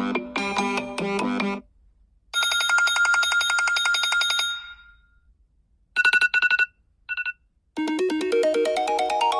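A sequence of iPhone ringtones played one after another. A melodic tone ends about a second and a half in, then a fast-pulsing tone plays for about two seconds and fades. A short burst of rapid beeps comes about six seconds in, followed by a brief one, and a new melodic ringtone starts near the end.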